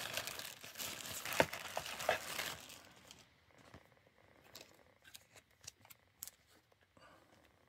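Clear plastic bag crinkling as a revolver is pulled out of it, for about the first two and a half seconds, with one sharper click partway through. After that only a few faint clicks.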